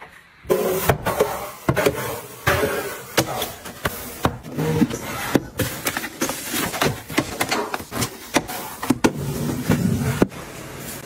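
Objects being handled and set down: a dense run of clicks, knocks and rustling, beginning about half a second in.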